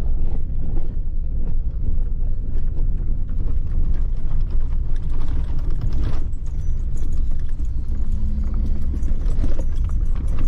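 Pickup truck driving on a rough dirt road, heard from inside the cab: a steady low rumble with constant rattling and knocking as it goes over the bumps.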